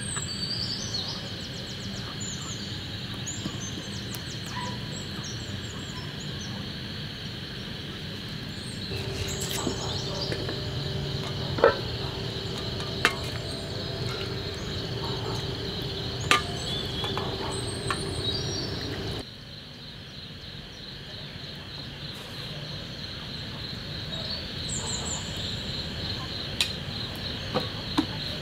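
Steady chorus of crickets and other insects, with a few sharp clinks of a wooden spoon and dishes against a metal pan while food is scooped out.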